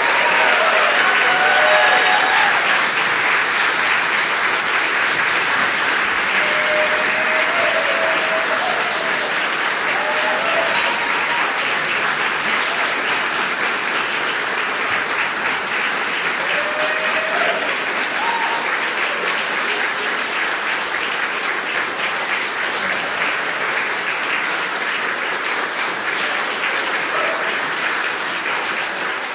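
Audience applauding steadily, with a few short shouts and voices heard over the clapping; the applause eases off slightly toward the end.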